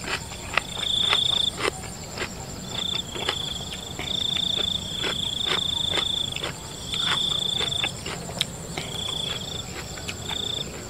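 Crickets trilling in on-and-off bursts over a steady high insect whine, with sharp crunchy clicks of close-up chewing.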